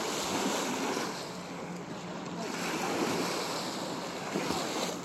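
Small sea waves washing up onto a sandy beach, the surf swelling and easing, with wind on the microphone.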